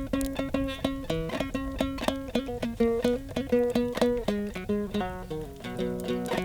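Background music: fast plucked-string melody, about four notes a second, in the manner of a guitar.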